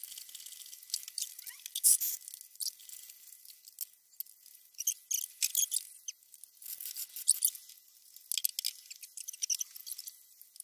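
Quick, irregular clusters of thin, high-pitched clicks, ticks and squeaks from chain-hoist and ratchet-strap work on a hanging engine and gearbox, with nothing low in the sound.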